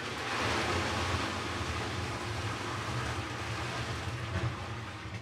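Wort pouring from a bucket into a stainless-steel conical fermenter, a steady rush of liquid splashing and foaming inside the tank with a low rumble beneath, which oxygenates the wort for the yeast. It tails off near the end as the bucket empties.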